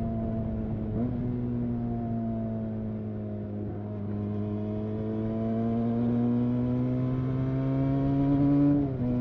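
Benelli 302S's 300 cc parallel-twin engine through its stock exhaust, heard from the rider's seat. The engine note steps up briefly about a second in, then sags slowly as the bike slows. It then climbs steadily under acceleration and drops suddenly near the end at a gear change.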